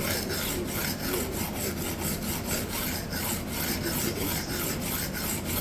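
A steel knife edge being ground on a diamond sharpening plate with rapid back-and-forth strokes, a continuous rasping scrape. Heavy steel removal is underway to grind out deep chips in the edge and reset the bevel.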